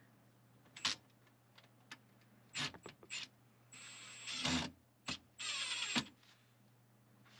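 A small handheld power tool runs in two short bursts of under a second each, about halfway through, with scattered clicks and knocks from handling refrigerant line.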